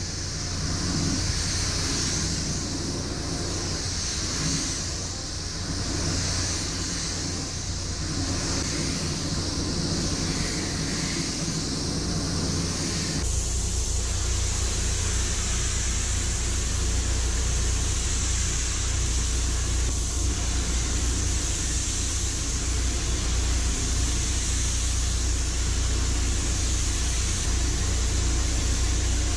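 Gravity-feed paint spray gun hissing steadily as compressed air atomises the paint, with a steady low rumble underneath. The sound changes abruptly about 13 seconds in.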